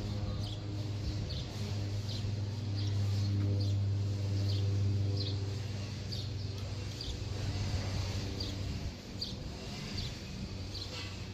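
Cessna 208B Grand Caravan's single Pratt & Whitney PT6A turboprop passing high overhead: a steady low propeller drone that dips briefly near the end. A bird chirps repeatedly, a little more than once a second.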